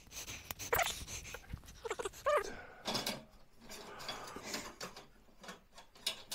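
A dog whines in short wavering cries, most clearly about two seconds in, over scattered clicks and rattles of shelving parts being handled.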